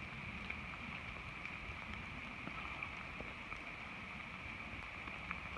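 Steady rain falling, with scattered faint ticks of drops and a constant high-pitched hum underneath.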